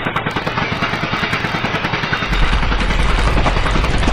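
Power drill boring into a statue: a fast, rattling mechanical whir. A deep rumble joins about two seconds in.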